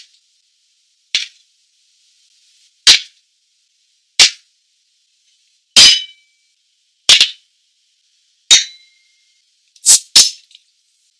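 A series of eight sharp knocks and clinks, spaced one to one and a half seconds apart with the last two in quick succession, several leaving a brief glassy ring: a stemmed glass and glass bottles being set down on a wooden desk.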